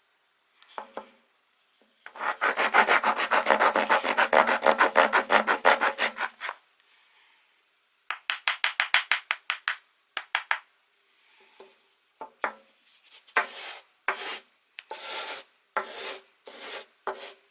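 Coarse-cut steel half-round wood rasp filing wood by hand. It starts with a fast run of short strokes, about seven a second, lasting some four seconds. A shorter fast run follows, and near the end come slower, separate strokes.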